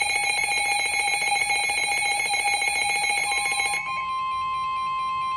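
An electronic alarm beeping in a rapid repeating pattern cuts off about four seconds in, leaving a steady single tone near 1 kHz: the NOAA Weather Radio warning alarm tone that comes before a new warning broadcast.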